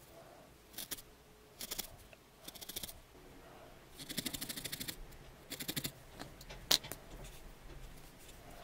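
Barbed felting needle stabbed quickly into a wool-felt cat head, a crisp crunchy tick with each stab, coming in short runs of rapid strokes, the longest about four seconds in. One sharper single click comes a little before the end.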